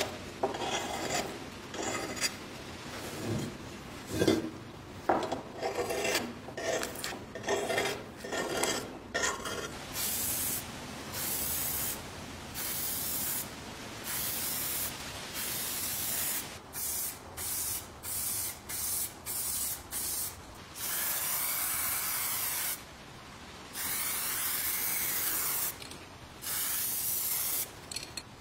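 A blade scraping and trimming masking tape on a painted metal part, in irregular scratchy strokes. Then an aerosol spray can hissing in about a dozen bursts of a second or two each, the last three longer, as red food-safe paint is sprayed onto the parts.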